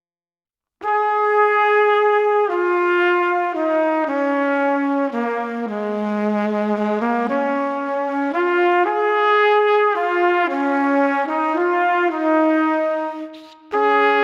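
Background music: a slow melody played one held note at a time, starting about a second in, with a brief dip near the end.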